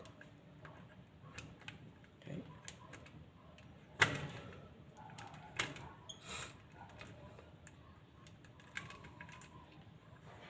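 Scattered clicks of hand pliers working electrical wire, the loudest about four seconds in.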